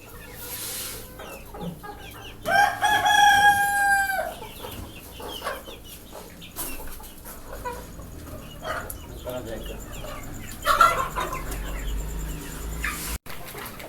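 Desi backyard chickens: a rooster crows once, its long held note about two and a half seconds in, while hens cluck on and off. A louder call comes near the end.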